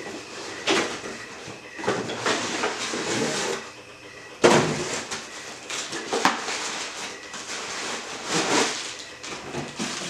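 Cardboard figure box being opened by hand: irregular rustling and scraping of the printed box flaps and the plain cardboard inner tray sliding out, loudest about four and a half seconds in. Near the end, a plastic bag crinkles.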